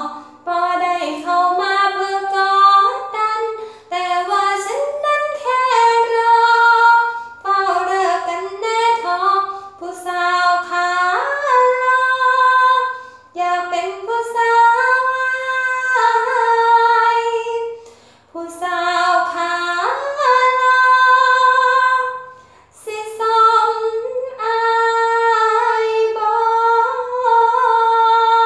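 A woman singing an Isan-language song unaccompanied, in long held notes with a wavering vibrato, pausing for breath between phrases every few seconds.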